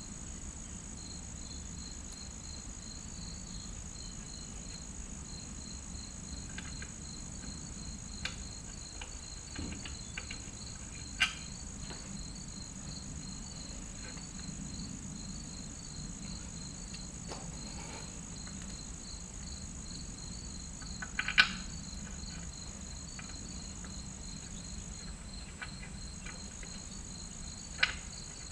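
Insects chirping steadily, a continuous high trill with a second insect pulsing about three times a second. A few sharp knocks stand out over it, the loudest about a third of the way in, about three quarters of the way in, and near the end.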